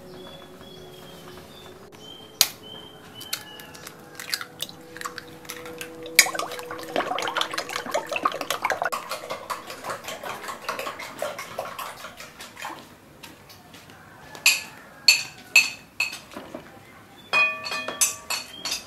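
Eggs being beaten in a glass bowl: a fast run of light clicks of the utensil against the glass for several seconds. Near the end come a few sharper clinks of a spoon against the bowl and plate, and a brief ringing clink.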